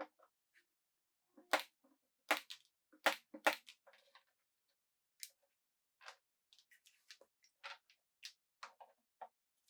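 Irregular sharp clicks and knocks of wooden pieces being handled and set against one another, with the loudest four strikes coming between about one and a half and three and a half seconds in, and fainter taps after.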